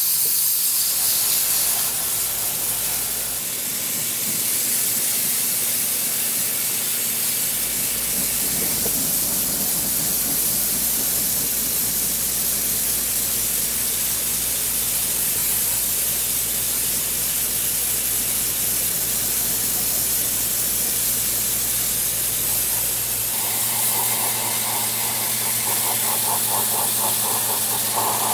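Dry ice blasting gun hissing steadily as it blasts pellets against a car's undercoated underbody. About three-quarters of the way through, a buzzing edge joins the hiss.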